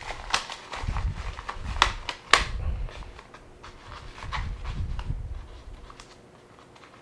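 Handling noise from a small collapsible fabric softbox being folded and fitted together by hand: fabric rustling with low bumps and several sharp clicks in the first two and a half seconds, then quieter handling.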